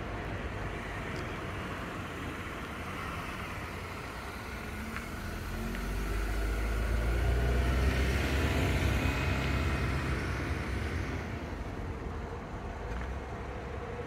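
A road vehicle drives past, its engine and tyre noise swelling from about five seconds in, loudest around eight seconds and fading away by about eleven seconds, over a steady background of distant traffic.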